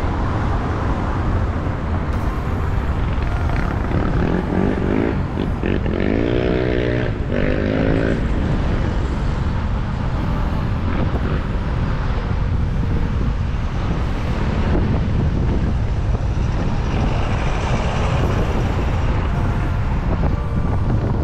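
Steady wind rumble on the microphone of a moving bicycle, with a pitched sound rising and falling about four to eight seconds in.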